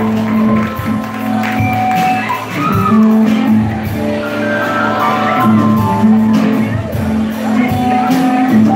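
Live rock band playing: held keyboard chords and electric guitar over drums, with a few shouts from the crowd.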